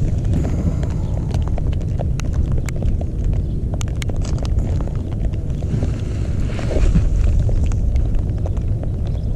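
Wind buffeting the microphone: a steady low rumble, with scattered clicks and rustles of handling.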